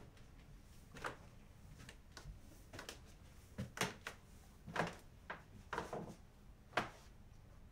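Footsteps going up a staircase and moving away: a string of irregular knocks and thumps, with a few sharper ones around the middle and near the end.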